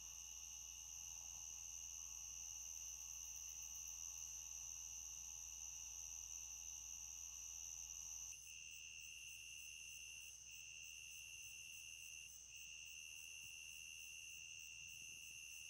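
Night insects singing faintly in a steady high drone. About eight seconds in the sound changes, and a call that breaks off briefly every two seconds or so takes over.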